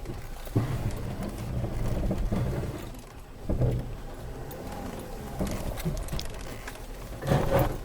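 Land Rover Freelander 2's engine running under load, heard from inside the cabin as the car works its way over rough ground after getting stuck, with a few knocks and bumps from the body and suspension.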